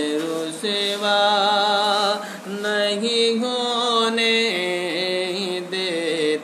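A man's solo voice singing a naat, an Urdu devotional poem in praise of the Prophet, in long held notes that slide and step between pitches, with short breaks between phrases.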